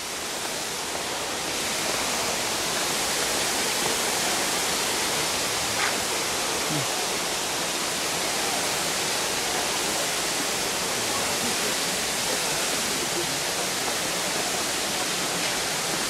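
Kintampo waterfall: a steady, even rush of falling water.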